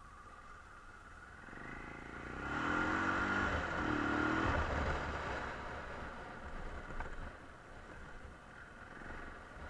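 1999 BMW F650's single-cylinder engine under way, getting louder as it accelerates about two seconds in, then easing off after about five seconds. A single short knock comes about seven seconds in.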